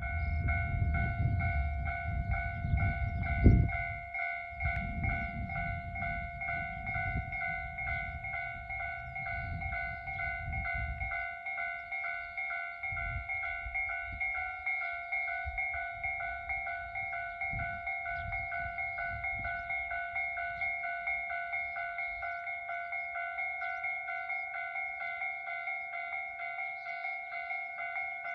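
Railway level-crossing warning bell ringing continuously in an even, rapid rhythm, the alarm that a train is approaching the station. For the first ten seconds or so a low rumbling noise runs under it, with a single loud thump about three and a half seconds in.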